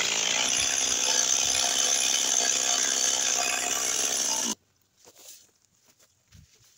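Two-stroke chainsaw running steadily with the bar out of the wood, then cut off abruptly about four and a half seconds in, leaving only a few faint rustles.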